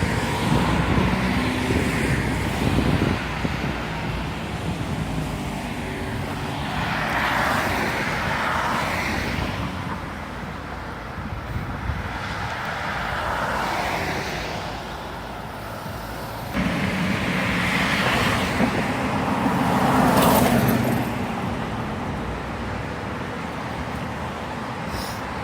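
Busy city street traffic: cars passing one after another, each swelling and fading, over a low hum of engines. The loudest pass comes about twenty seconds in.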